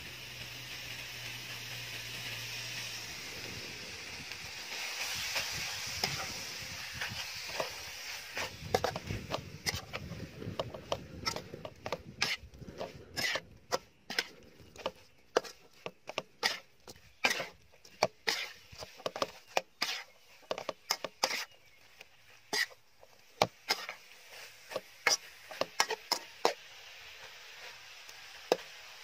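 Beef and holy basil sizzling in a metal wok, then a spatula stirring the meat and striking and scraping the wok. The strikes come as many sharp, irregular clacks from about eight seconds in until near the end.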